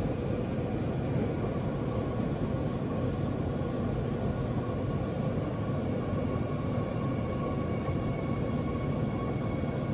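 Seoul Subway Line 2 electric train running, heard from inside the car: a steady rumble of wheels on rails with a faint steady whine above it.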